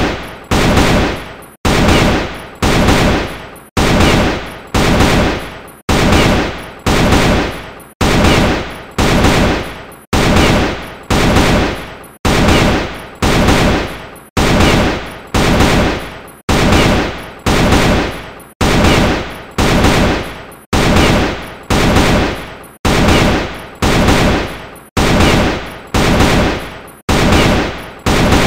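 AK-47 rifle gunfire sound effect: a loud shot or short burst about once a second, each fading away before the next, repeated in an even loop.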